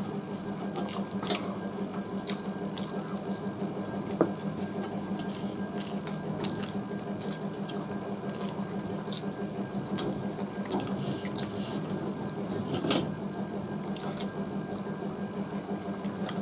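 Eating by hand from steel plates: fingers mixing rice and curry and chewing, heard as scattered small wet squelches, smacks and clicks over a steady low hum.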